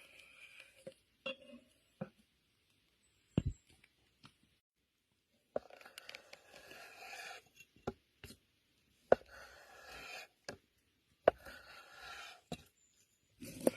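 Scattered sharp clicks and knocks, then three scraping strokes of about a second each, each starting with a sharp knock.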